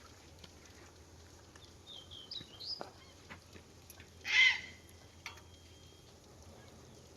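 Birds calling: a quick run of high rising chirps about two seconds in, then a single loud, harsh call a little past the middle.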